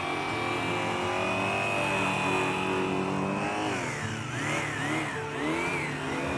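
Electric hand-held polisher with a flannel buffing wheel running against a polished aluminum truck wheel during the final rouge buffing, a steady motor whine. In the second half the pitch dips and recovers several times as the buff is worked over the metal.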